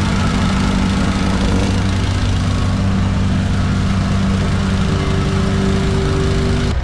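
A construction machine's engine running steadily, with a small shift in its tone about two seconds in; the sound changes abruptly just before the end.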